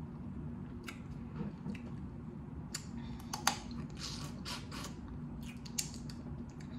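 Boiled blue crab shell cracking and snapping in the fingers as the legs are broken apart and the meat pulled out, mixed with mouth sounds of sucking and chewing. Scattered sharp clicks and short crackles, the loudest a single snap about three and a half seconds in.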